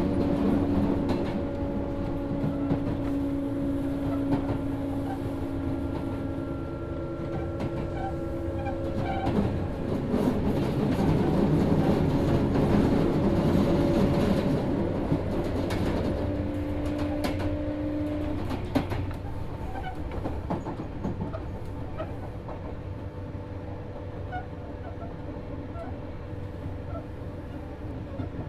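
Running sound inside a Sotetsu 7000 series motor car with a Hitachi GTO-VVVF inverter: steady motor and inverter tones over the rumble of wheels on rail, with small rail-joint clicks. The motor tones cut off about two-thirds of the way through, and the ride grows quieter.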